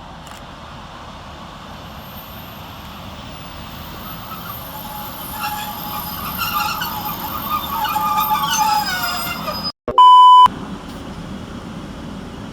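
A train coming into the station, its noise growing louder, with a squealing whine that falls in pitch as it slows. About ten seconds in the sound cuts out briefly and a short, very loud electronic beep sounds.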